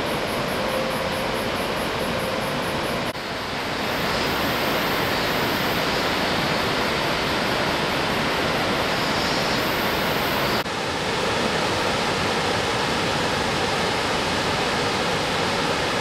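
Steady rushing of water from Fukiwari Falls and the Katashina River rapids, an even noise that changes abruptly about three seconds in and again just past the middle.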